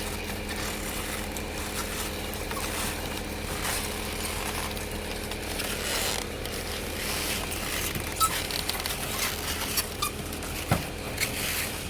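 Concrete pump truck's diesel engine running with a steady drone during a concrete pour, with scattered clicks and short scrapes in the second half.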